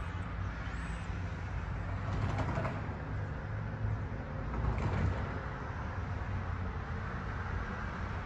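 Train-station ambience: a steady low rumble, with a couple of brief knocks about two and five seconds in.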